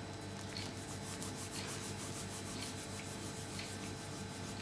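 Fingertips rubbing and crumbling a cube of fresh yeast into flour: a soft, quick, repeated scratchy rubbing.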